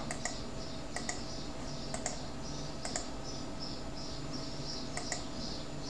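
Faint computer mouse clicks, each a short sharp click, often doubled, roughly once a second, over a faint fast high-pitched ticking.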